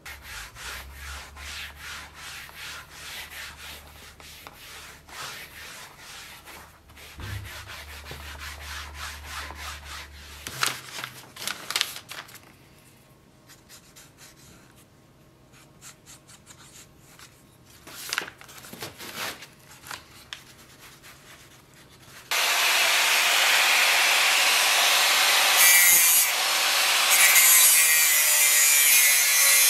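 Quick repeated rubbing strokes on a leather scabbard, with a low hum behind them. About two-thirds of the way in, a much louder angle grinder starts abruptly and runs steadily, its disc cutting into a steel plate.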